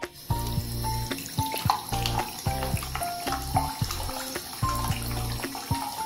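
Water from a waterfall-style bathroom faucet running steadily into the sink basin, under background music with a melody and a steady bass beat.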